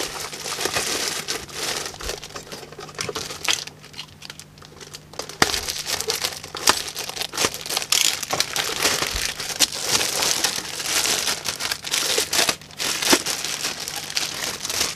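Clear plastic bag crinkling and rustling as it is worked off a bench power supply by hand, in rapid crackles, with a quieter spell about four seconds in.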